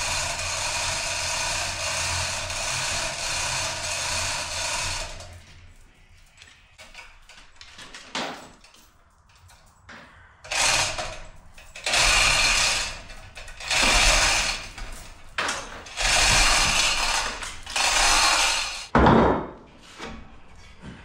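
Chain hoist running steadily for about five seconds while lifting a car's rear axle assembly. After a short lull it runs in a string of short spurts about a second long as the axle is lowered. Near the end a single clunk comes as the axle housing sets down on a steel-topped bench.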